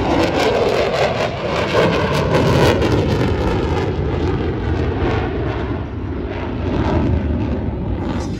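Fighter jet engine roaring overhead. The pitch drops over the first second or two, then the roar holds steady and slowly fades as the jet climbs away.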